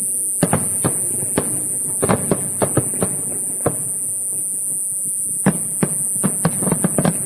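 Fireworks going off in an irregular series of sharp bangs and pops, several a second at times. A loud steady high-pitched hiss runs underneath.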